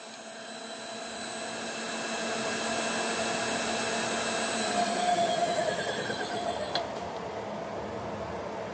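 Davey DynaDrive variable-speed, constant-pressure booster pump running with a steady whine that swells, then falls in pitch and cuts off with a click about seven seconds in. With every tap closed, the pump is ramping down and stopping as demand ends.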